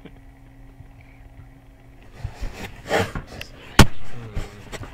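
A low steady hum. After about two seconds come rustling handling noises close to the microphone, then one sharp, loud click a little before the four-second mark, with a few softer knocks after it.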